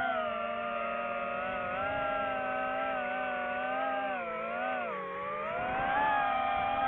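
DJI FPV drone's motors and propellers whining, the pitch rising and falling with the throttle: it dips around five seconds in and climbs again as power comes back.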